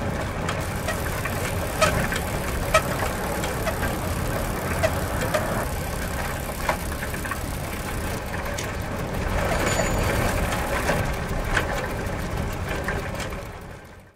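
Bicycle being ridden: a steady rumble with scattered sharp clicks and rattles, growing a little louder past the middle and fading out near the end.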